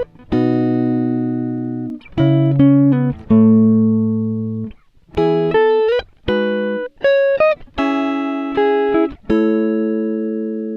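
Background music: plucked guitar notes and chords, each struck sharply and ringing out as it fades, in short phrases with brief gaps between them.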